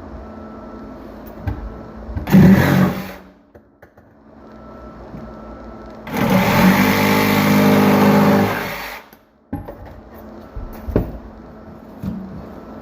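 A small power tool's motor runs in two bursts: a short one about two seconds in, then a steady run of about three seconds from about six seconds in.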